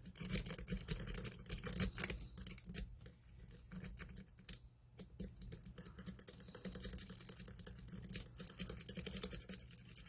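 Steel lock pick raking in the keyway of a Master Lock Magnum M930 five-pin padlock under tension: a fast, uneven run of small metallic clicks and scrapes as it rattles over the pin tumblers, easing off for a couple of seconds around the middle.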